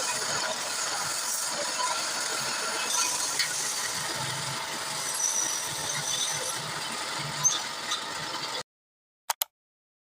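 Wood lathe running as the spinning wood is worked, a steady hissing scrape with scattered squeaks. It cuts off abruptly late on, followed by two short clicks.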